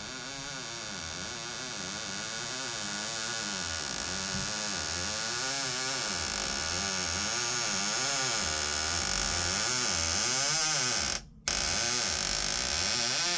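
Squeaky interior door hinge creaking in repeated wavering groans, rising and falling in pitch, as the door slowly swings closed, over a steady hiss that grows louder. The sound cuts out for a moment about eleven seconds in.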